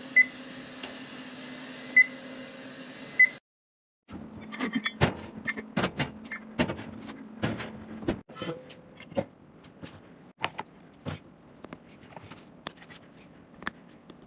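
An electronic beeper sounds three short, high beeps about a second and a half apart over a steady hum. After a brief cut come irregular sharp clicks and knocks of hard objects being handled.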